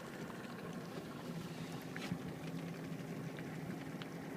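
Boat motor running steadily at low speed as a low hum, with a few faint clicks about two seconds in and near the end.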